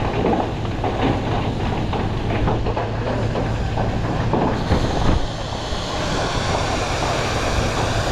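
Fire truck pump engine running with a steady low hum under a loud rushing hiss of water and a scattered crackle. The hiss turns brighter and higher about five seconds in.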